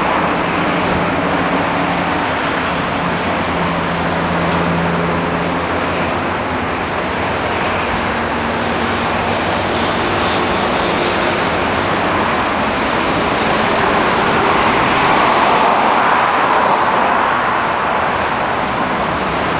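Rushing roar of a low jet airliner on landing approach, swelling to its loudest about three quarters of the way through as it comes overhead. A vehicle engine's low hum is heard under it for the first few seconds.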